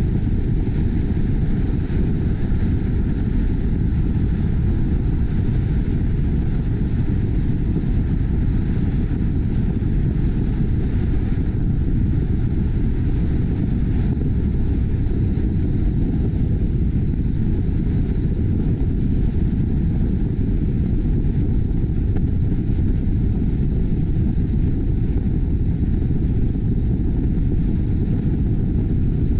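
Steady wind and road rumble of a car cruising at freeway speed, picked up by a GoPro mounted on the outside of the car. The noise is even and unchanging, heaviest in the low rumble.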